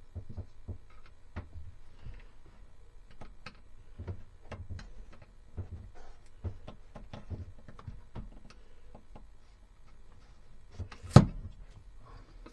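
Irregular small clicks and knocks of a light fixture being pried and pulled off a bulkhead where it is stuck with strong double-sided tape, with one sharp, loud knock near the end.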